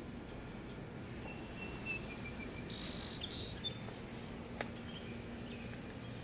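A bird calling over steady outdoor background noise: a quick run of high, evenly spaced chirps with a thin whistle about a second in, lasting a couple of seconds, then a single sharp tick past the middle.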